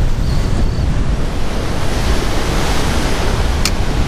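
Heavy wind buffeting the microphone over rough, breaking surf, a steady low rumble with a rush of wave hiss swelling in the middle. A single sharp click near the end.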